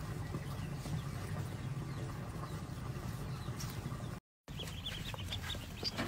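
A steady low hum, then after a brief dropout, ducklings peeping in quick, faint, high chirps.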